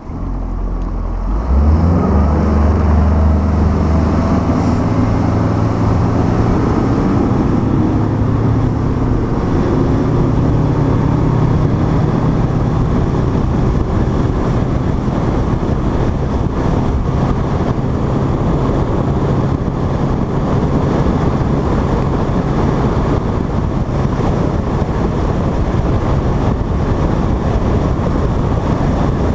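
Outboard motor on a Nitro Z7 bass boat picking up speed: it comes in suddenly, rises in pitch over the first few seconds, then runs steadily as the boat cruises.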